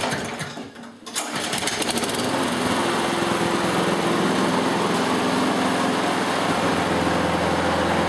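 Lawn mower's small petrol engine starting up about a second in, then running steadily at a constant speed.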